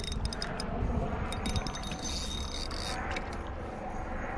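Spinning reel clicking in short, irregular runs while a fish is on the line, over a steady low rumble.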